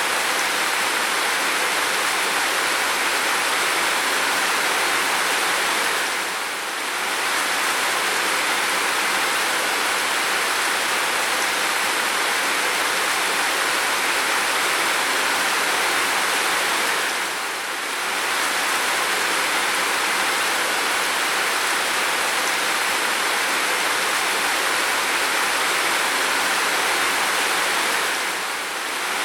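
Heavy rain pouring steadily, a dense even hiss, with a brief slight dip in level about every eleven seconds.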